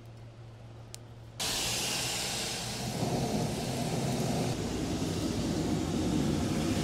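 Charcoal forge under a forced-air blast: a steady rushing roar comes on suddenly about a second and a half in and grows fuller and deeper a second or so later as the fire flares. The fire is heating a mud-coated stack of steel on its lever.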